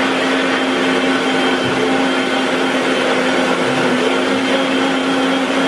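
Electric kitchen mixer grinder running at full speed, a loud, steady motor whine with the blades whirring in the jar.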